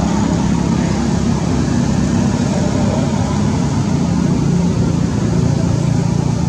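Steady, loud mechanical drone like a running engine, a low hum under an even hiss.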